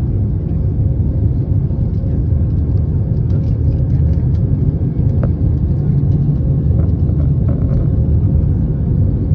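Steady low rumble of an airliner's engines and airflow heard inside the passenger cabin while the plane climbs after takeoff, with a faint steady hum over it.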